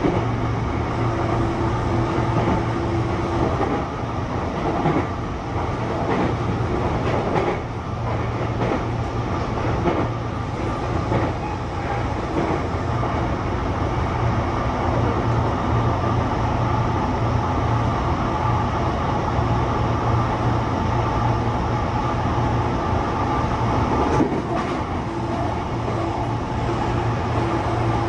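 Sotetsu 20000 series electric train, with Hitachi hybrid SiC VVVF drive, running at speed, heard inside the passenger car: a steady low rumble of wheels on rail with scattered rail-joint clicks. A steady tone from the drive is heard in the first few seconds and again in the last few.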